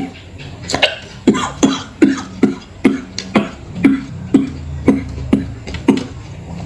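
A man coughing over and over while eating, about two short coughs a second, as when food has gone down the wrong way.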